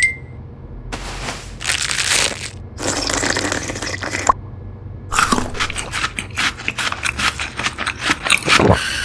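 Cartoon eating sound effects of an ice pop: two stretches of rustling noise in the first four seconds, then a fast run of crunching bites, several a second, through the last four seconds as the pop is eaten down to the stick.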